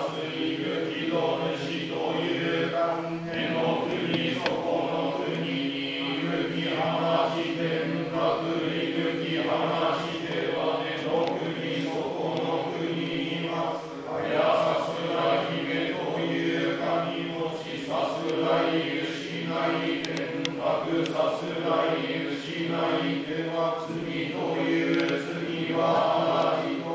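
Shinto priests chanting a norito prayer in a steady, unbroken monotone.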